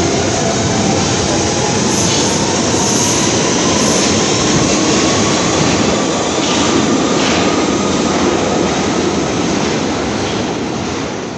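London Underground tube train pulling out of a deep-level platform: a loud, steady rumble of wheels on rail and traction motors, with a faint motor whine rising slowly in pitch as it gathers speed.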